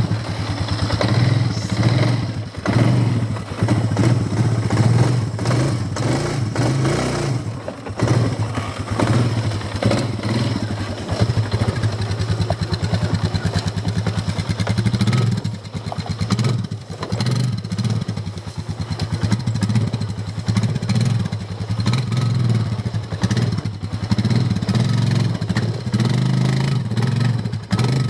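ATV engine running under way, a steady low engine note with frequent knocks and rattles from the machine.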